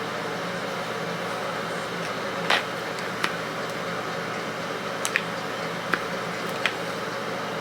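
Steady mechanical hum, like a fan or air conditioner running, with a few light clicks scattered through it.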